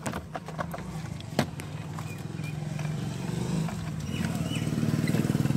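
A few sharp plastic clicks and taps as a car's instrument cluster is worked loose from the dashboard with a screwdriver, over a steady engine hum that grows louder toward the end.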